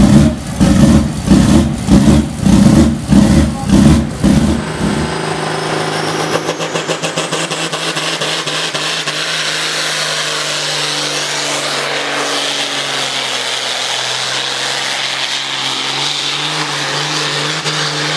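Big diesel tractor engine at a tractor pull. For about the first four seconds it pulses heavily, roughly one or two throbs a second. It then settles into a steady, loud, high-revving drone with a thin whine that rises for a few seconds.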